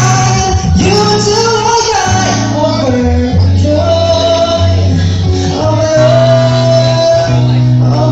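Song performed with a voice holding long notes over steady bass notes that change every second or so.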